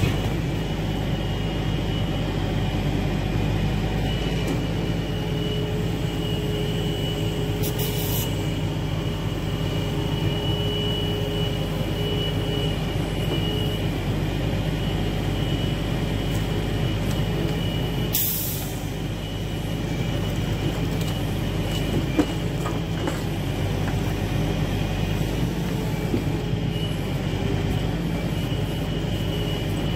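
Log truck's diesel engine running steadily to drive its hydraulic knuckleboom log loader as the crane lifts and swings logs off the deck, with a thin high whine over the engine. Two short hisses come about 8 and 18 seconds in.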